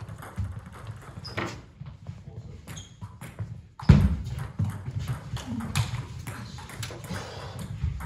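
Scattered light clicks and footsteps on a sports hall floor between table tennis rallies, with a table tennis ball being handled and bounced. One heavier thump comes about four seconds in.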